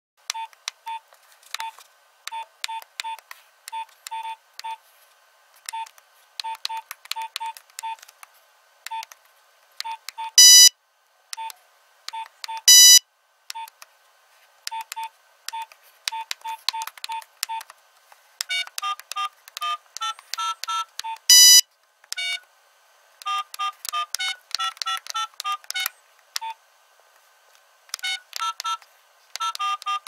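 Nokia mobile phone keypad tones: short electronic beeps in quick, irregular runs, as keys are pressed one after another. The beeps move to a higher pitch after about eighteen seconds. Three louder, longer, buzzier tones stand out, around ten, thirteen and twenty-one seconds in.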